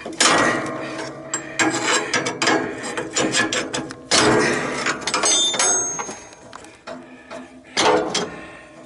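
Metal clanking, scraping and rattling as a riding mower's deck linkage is pried loose, with several sharp metal knocks and a brief high ringing a little past the middle.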